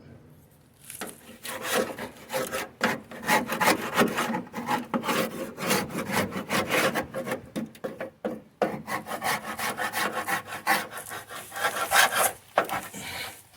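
Old paint being rubbed and scraped off the Karmann Ghia's body by hand, in quick, uneven, rasping strokes that start about a second in.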